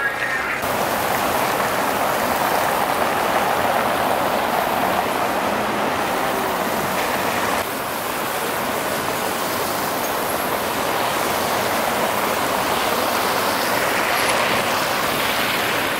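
Steady city street noise: a continuous hiss of passing traffic and tyres, changing in tone abruptly about half a second in and again about eight seconds in.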